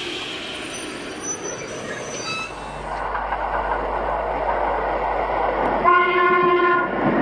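A train running with a steady rumble that swells a few seconds in, then a train horn sounding once for about a second near the end.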